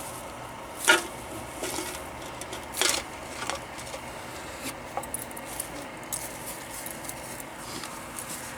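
Scattered clatter and rattling of junk parts being handled, with two louder sharp clanks about a second in and about three seconds in.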